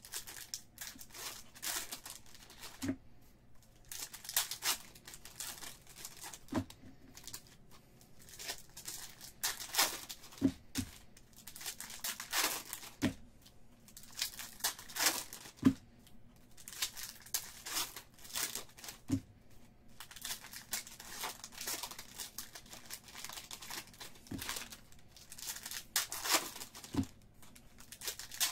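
Foil wrappers of 2019 Bowman baseball card packs crinkling and tearing as the packs are ripped open by hand, with now and then a soft knock.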